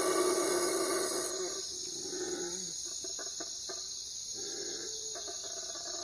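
Night forest ambience: a steady chorus of insects chirring. A loud high hiss over it cuts off about a second in.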